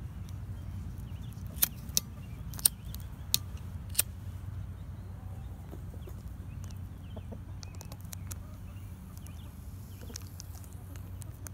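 Chickens clucking softly now and then, with five sharp clicks in the first four seconds over a steady low rumble.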